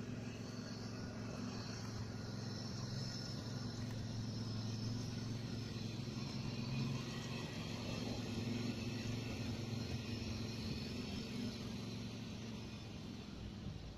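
A steady low engine hum that holds level without revving.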